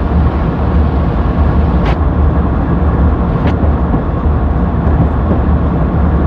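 Diesel locomotive engine sound running steadily with a deep rumble as the train rolls on, broken by two short sharp clicks, about two seconds and three and a half seconds in.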